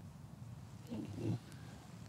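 A short wordless vocal sound from a man, about half a second long and about a second in, over a low steady background rumble.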